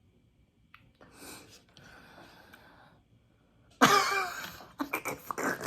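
A woman's breathy exhalations, then from about four seconds in a loud voiced laugh breaking into short rapid pulses.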